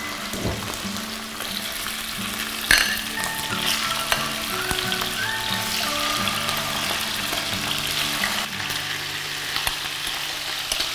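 Chicken wings sizzling steadily in hot olive oil in a nonstick frying pan as more pieces are laid in, with one sharp click about three seconds in.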